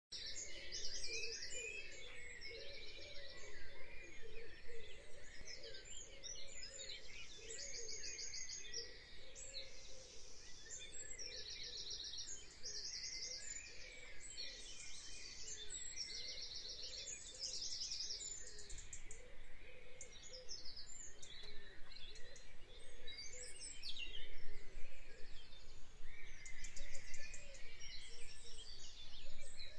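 Birds singing outdoors, short fast trills repeated every second or two over a steady background hiss.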